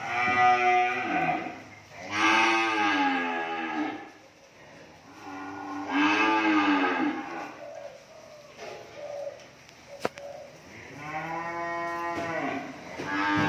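Young cattle mooing: four long calls, each rising and then falling in pitch, with a longer pause before the last one.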